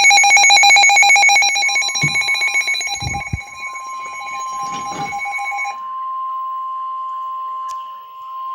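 Weather alert radio sounding its alarm for a severe thunderstorm warning: a loud, rapidly pulsing beep until about six seconds in. Under it, from about two seconds in, the steady single tone of the NOAA Weather Radio warning alarm starts and carries on to the end. A few dull thumps come around two to three seconds in.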